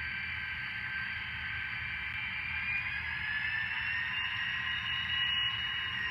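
TCS WowSound decoder's simulated SD40-2 diesel engine, played through a single small speaker in an HO-scale model locomotive under load. It runs steadily with a hissing, buzzy tone, and its pitch rises a little between about three and five seconds in as the engine sound notches up.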